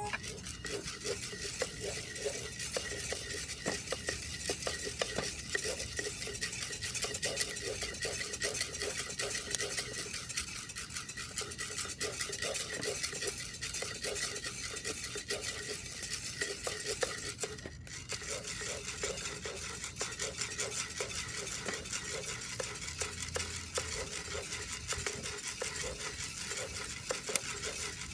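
Coffee beans being stirred with a wooden spatula in a round-bottomed cast iron pot during home roasting: a continuous dense patter of small clicks and scrapes as the beans tumble, with a moment's break about two-thirds of the way through.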